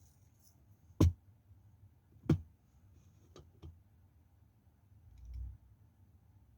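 Knife cutting through a bar of marbled soap: two loud, sharp crunching cracks a little over a second apart, then two fainter ones close together, and a soft low thud near the end.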